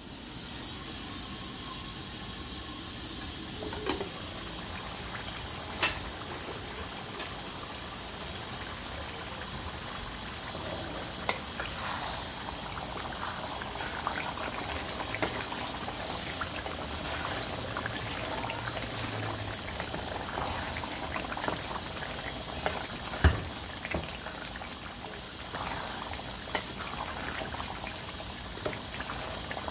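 Beef curry bubbling and simmering in a stainless steel pot, with a steady crackle of popping bubbles. A few sharp knocks of a utensil against the pot stand out, the loudest about 23 seconds in.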